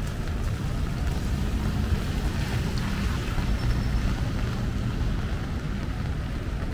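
Wet-street traffic: a low rumble, with the hiss of tyres on rain-soaked pavement as cars and motorbikes pass. The hiss swells for a couple of seconds in the middle.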